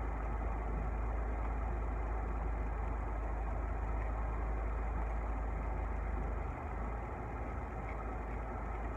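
Car engine idling, heard from inside the cabin: a steady low rumble that eases slightly about six and a half seconds in.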